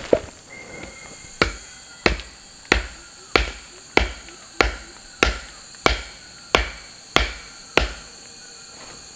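Steady, evenly paced blows of a tool striking wood, about a dozen strikes at roughly one and a half per second, each a sharp knock with a dull thud under it. Insects buzz steadily throughout.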